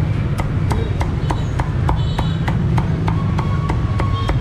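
Cleaver chopping roast pork with crisp crackling skin on a thick round wooden chopping block: a steady run of sharp knocks, about three a second.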